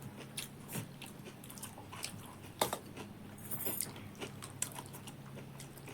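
Close-up chewing of a mouthful of singju salad and rice: irregular crisp crunches and wet mouth clicks, with one louder crunch a little past the middle.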